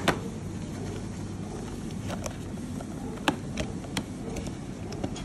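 Cardboard perfume boxes handled on a tabletop: a sharp knock as a box is set down at the start, then a few light clicks and taps as a box flap is opened, over a steady low background rumble.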